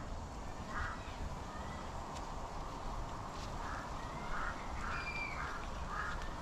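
Birds calling: a series of short calls, more frequent in the second half, over a steady background noise.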